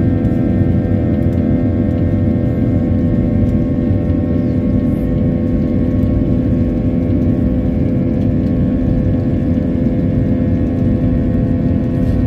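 Airliner engines at takeoff power during the takeoff roll, heard from inside the cabin: a loud, steady drone with several steady whining tones over it.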